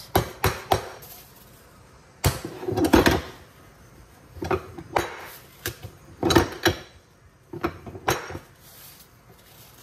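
Kitchen dishes and utensils clattering at the counter: a string of separate knocks and clinks in irregular clusters, busiest around two to three seconds in.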